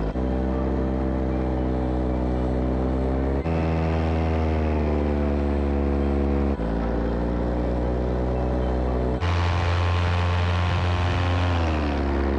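Paramotor engine and propeller running, the sound jumping abruptly about every three seconds to a different engine speed. Its pitch sags gently in places and falls clearly near the end as the throttle eases off.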